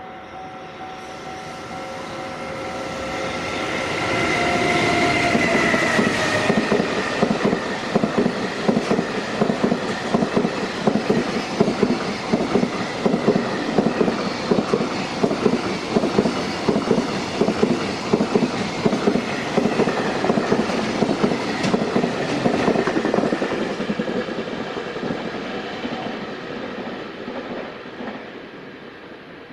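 Freight train passing a level crossing. The locomotive's steady whine drops in pitch as it goes by about five seconds in. Then the long string of wagons rumbles past, the wheels clacking rapidly over the rail joints, and the sound fades away near the end.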